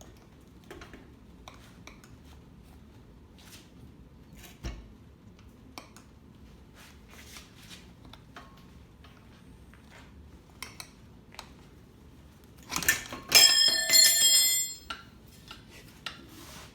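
Metal tire spoons working a dirt-bike tire off its rim: scattered light clicks and taps, then, about 13 seconds in, a loud metallic clatter with ringing as the spoons strike the rim or stand.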